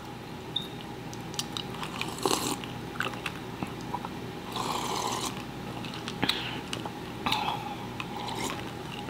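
Eating and drinking mouth sounds: chewing and sips of a drink through a straw, heard as small clicks and short bursts, with one longer sip about five seconds in.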